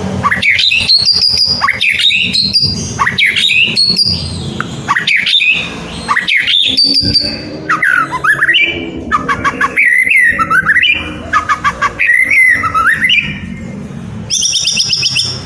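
White-rumped shama (murai batu) singing loudly and without pause: a rapid run of varied whistled phrases with rising and falling glides, mixed with harsher notes.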